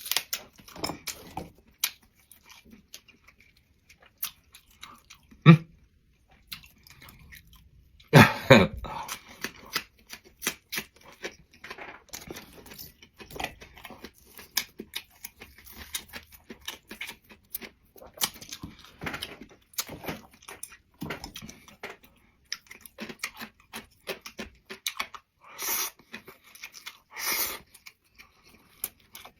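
A person chewing and biting food close to the microphone, with irregular crunching and smacking and a few louder bites, from eating home-cooked Northeast Chinese dishes such as scallions rolled in dried tofu skin.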